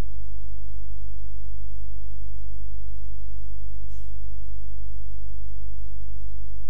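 Steady electrical mains hum: a low, even buzz with a stack of evenly spaced overtones.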